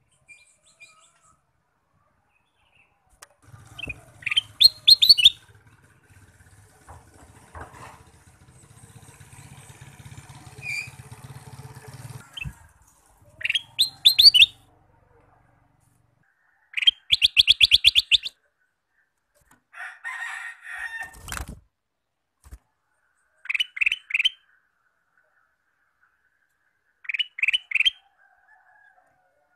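Male ruby-throated bulbul (kutilang emas) singing in about six short bursts of quick, repeated chirpy notes with pauses between them. A low hum runs under the first half.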